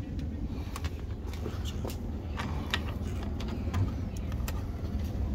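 Scattered light clicks and taps of screws and hard plastic and metal intake parts being handled and fitted by hand, over a steady low hum.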